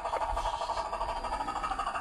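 Electric motor and gear train of a Gmade GS02F RC crawler running steadily as it drives across rock, a steady whir.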